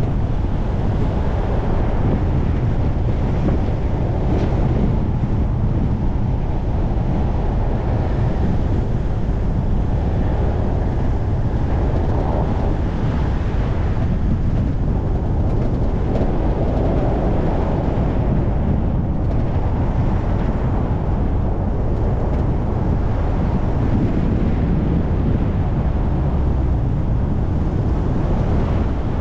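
Steady rumbling wind and road noise from a moving car, with wind buffeting the microphone.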